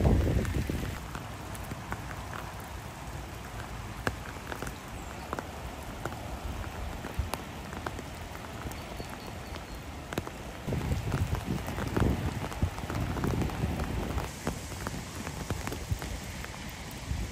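Steady rain falling on floodwater and wet grass, with many small raindrop ticks. Low gusts of wind rumble on the microphone at the start and again a little past the middle.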